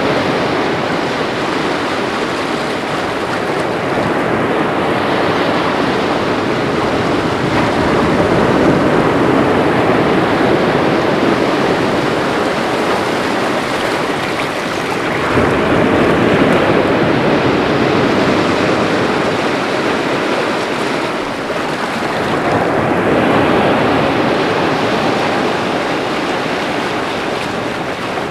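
Sea waves breaking and washing against rocks on the shore, a continuous rush that swells and eases every few seconds, with a stronger surge about halfway through.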